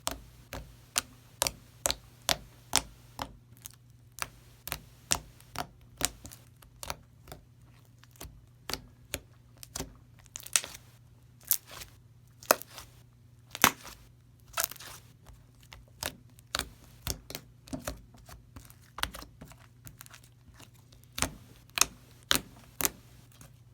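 Slime being squished and poked, making a long run of sharp pops and clicks, roughly one to two a second and unevenly spaced, some much louder than others.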